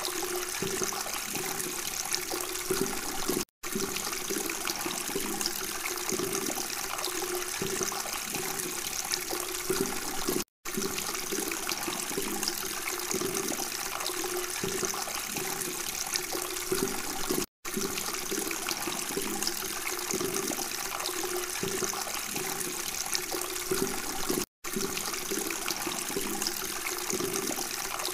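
Water splashing and trickling steadily in a small homemade tabletop fountain, pouring into its basin. The sound cuts out for an instant four times, about every seven seconds.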